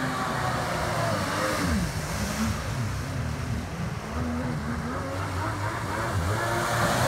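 1998 Kawasaki ZXI1100 jet ski's three-cylinder two-stroke engine revving up and down as the ski carves tight turns. The pitch drops about one and a half seconds in, stays low, then climbs again near the end.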